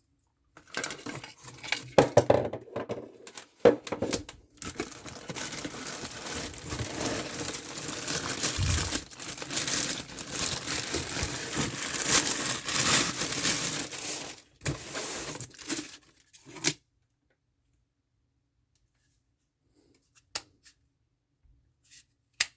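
Packaging being torn open and crinkled for several seconds while a drill set is unboxed, with a couple of sharp rips near the start. The handling then stops, leaving a few light clicks.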